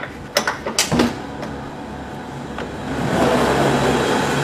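Metro car door's emergency release clicking and knocking a few times as it is worked. About three seconds in, a steady mechanical rushing noise starts as the door opens.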